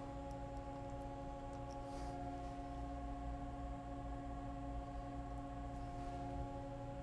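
Steady hum of an idling CNC vertical milling machine, several steady tones over a low rumble, with a couple of faint ticks about two seconds in.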